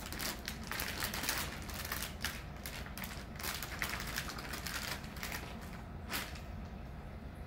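Hands handling computer parts and their packaging: a run of irregular light clicks and rustles.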